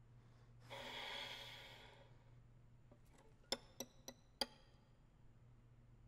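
Solo violin in a quiet contemporary passage. A soft, breathy hiss swells and fades over about a second and a half. A couple of seconds later come four short plucked pizzicato notes in quick succession.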